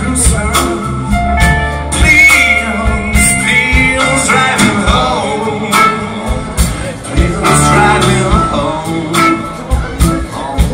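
Live band playing a slow blues, a man singing over electric guitars, keyboards and drums.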